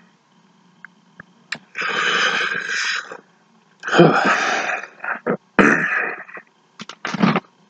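A man making loud, breathy throat and breath sounds, four in a row; the first two each last over a second and the last is short.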